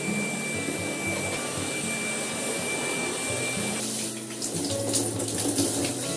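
A stick vacuum cleaner running over carpet with a steady high whine, then, about four seconds in, water running from the tap into a bathtub.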